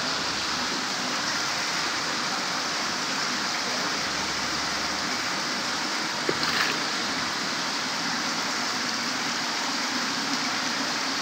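Steady rush of running water in a fish-seed holding tank, with a brief sharp sound about six and a half seconds in.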